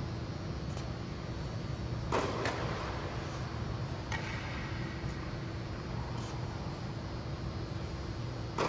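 Tennis ball hits in a rally: a few sharp, echoing racket strikes about two seconds apart, the loudest about two seconds in and near the end, over a steady low hum.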